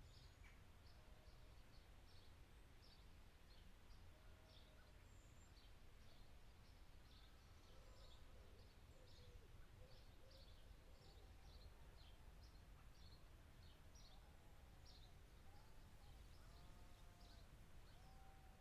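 Faint outdoor ambience of birds: many short, high chirps repeated throughout, with some lower arching calls from about four seconds in, over a steady low rumble.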